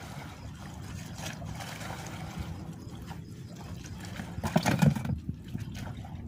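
Seawater lapping and trickling against the shore, with a louder clattering rustle of handling about four and a half seconds in.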